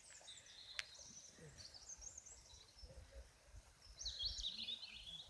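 Small birds singing faintly in the early morning, with a twittering phrase about a second and a half in and a louder, busier warbling phrase about four seconds in. There is a single faint click about a second in.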